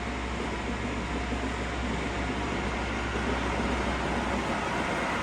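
Steady mechanical hum and whir of a running machine, with a low hum that drops away about four and a half seconds in.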